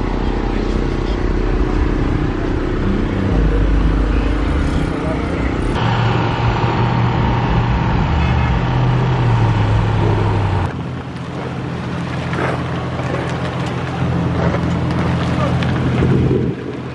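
Car engines running as cars roll slowly past on a parking lot, with voices in the background. The sound changes abruptly twice, about six and eleven seconds in.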